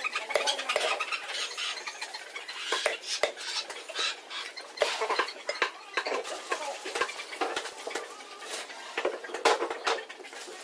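A large chopping knife cutting a rohu fish into steaks on a wooden chopping block: irregular knocks and chops as the blade goes through the fish into the wood.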